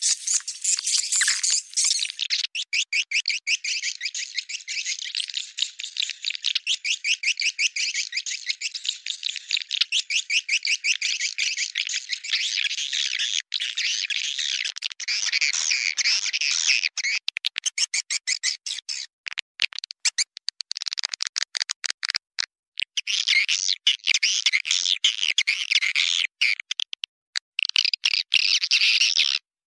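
Swiftlet calling track: a dense, rapid chattering twitter of swiftlets, the kind of call played to lure swiftlets into a nesting house. In the second half it breaks off abruptly several times for a fraction of a second.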